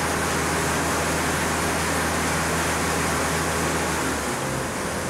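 New Holland T7 tractor running at speed on a rolling-road test rig: loud, steady engine and tyre-on-roller noise. A low steady hum under it drops away about four seconds in.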